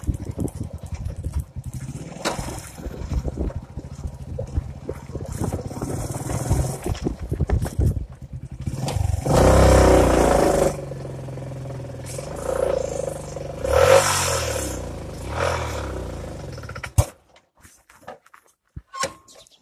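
Motorcycle engine running while riding, its pitch rising and falling with the throttle, with wind rushing over the microphone and a loud rush of noise about halfway through. The sound cuts off suddenly near the end, leaving a few faint clicks.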